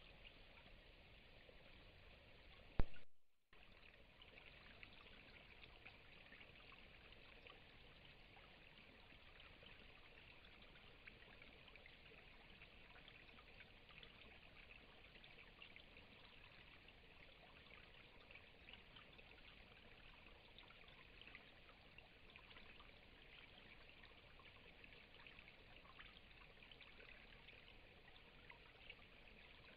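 Faint steady hiss with a light crackle, like quiet running water or recorder noise. A single sharp click about three seconds in, followed by a moment of dead silence.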